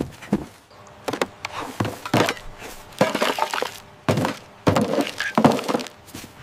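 Cartoon sound effects of bottles and cans being dropped into plastic recycling bins: a quick run of separate clattering knocks, the loudest in the second half.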